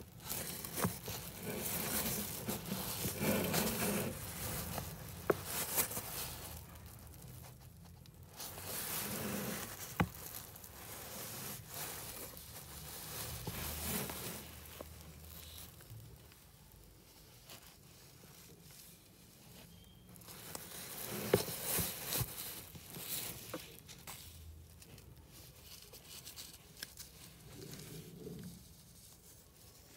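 A woven plastic sack rustles and crinkles in irregular bursts as newborn kittens squirm on it and a hand moves among them.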